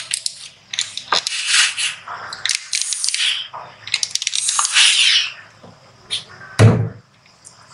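Steam iron hissing in three bursts of about a second each as it is pressed onto the fabric seams, then a single thump near the end.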